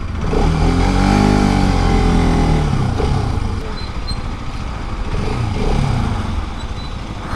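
Motorcycle engine pulling away, rising in pitch over the first second or so and then dropping back about two to three seconds in, before running on steadily with wind noise.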